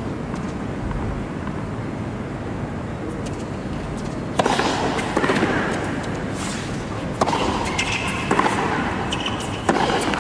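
Tennis ball struck by rackets over steady arena crowd murmur: a sharp hit about four seconds in, then three more hits about a second and a quarter apart near the end as a rally gets going.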